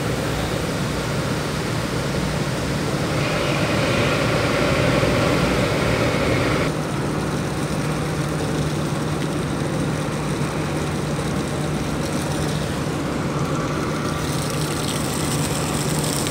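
Offshore supply vessel's engines running with a steady low drone and a constant hum, under a hiss that eases about seven seconds in.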